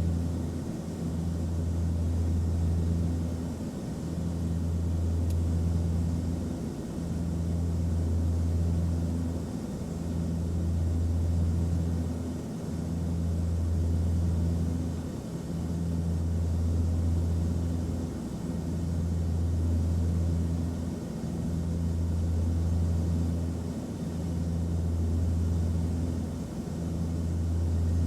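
Airliner cabin noise in flight: a steady low drone with an even hiss of airflow over it. The drone swells and dips regularly, about every two and a half seconds.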